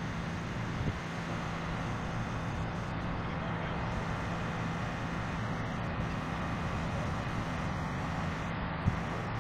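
Diesel engines of heavy construction machinery (a Cat excavator and backhoe loader) running at a steady idle with a constant low hum. Two sharp knocks sound over it, a small one about a second in and a louder one near the end.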